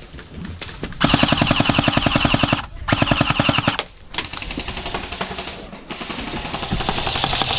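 Airsoft gun firing on full auto: two long, loud bursts with a brief break between them about three seconds in, followed by quieter rapid fire.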